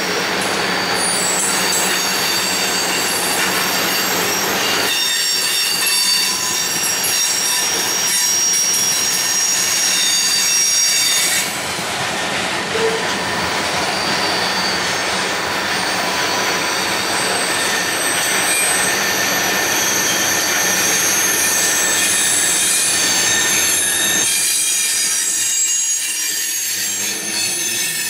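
Freight train tank cars rolling past close by, their steel wheels squealing against the rails in several thin, high, steady tones over a continuous rolling rumble.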